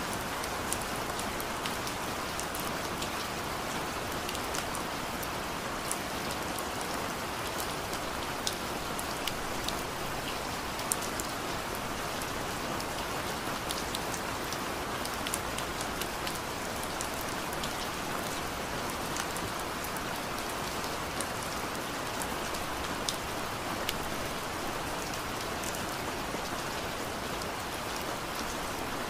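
Steady rain falling, an even hiss sprinkled with many small drop ticks.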